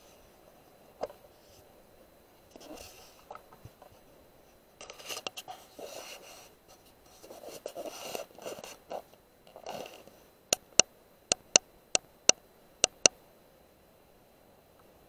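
Scratching and rubbing handling noise, then about eight sharp clicks in quick pairs over some three seconds, starting about ten seconds in, as the digital rifle scope's zoom is stepped up.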